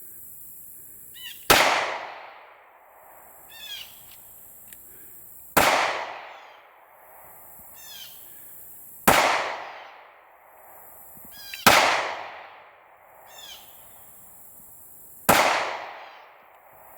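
Five gunshots fired one after another, about two and a half to four seconds apart, each followed by an echo that rolls off.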